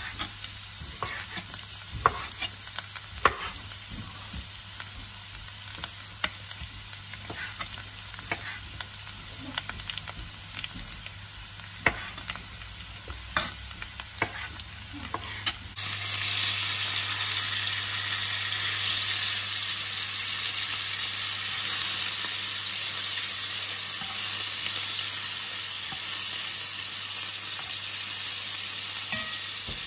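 Chef's knife cutting raw chicken breast fillet into cubes on a plastic cutting board, the blade tapping the board at irregular moments. From about sixteen seconds in, raw chicken cubes sizzling steadily in hot oil in a frying pan, stirred with a spatula.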